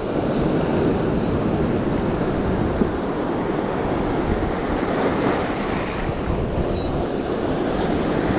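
Sea surf breaking and washing over boulders: a steady, dense rushing.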